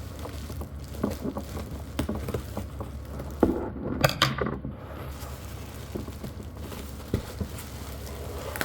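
Objects being handled: scattered light taps and clicks, with a louder cluster of knocks and rustling about four seconds in, over a steady low hum.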